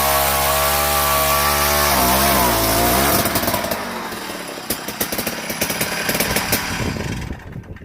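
Gas-powered ice auger's small two-stroke engine running at high speed, its pitch dipping and wavering about two seconds in, then running rougher and noisier before dying away near the end.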